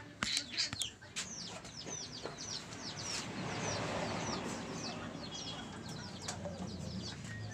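Birds chirping over and over, short high falling chirps several a second. Under them a soft pouring hiss swells in the middle as brake fluid is poured from a bottle into a motorcycle's front brake master cylinder reservoir.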